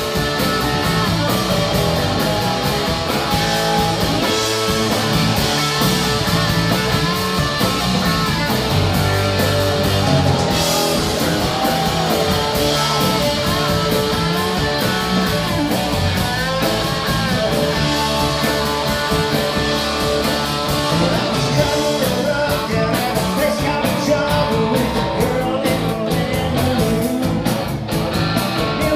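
Live country rock band playing: electric guitar and drums under a sung lead vocal, loud and continuous.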